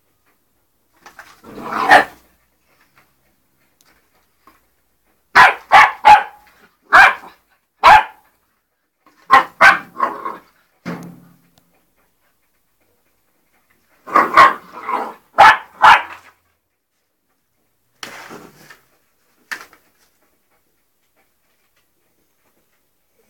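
Three-month-old springer spaniel puppy play-barking: about a dozen short, loud barks in clusters with quiet pauses between.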